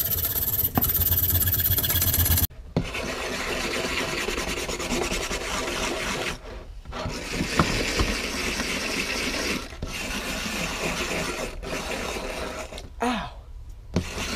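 A Teflon plate being scuffed by hand against a rough surface: long stretches of scratchy rubbing with short breaks, roughening the plate so the silicone will grip. The first two and a half seconds hold a louder, steady tool noise that stops abruptly.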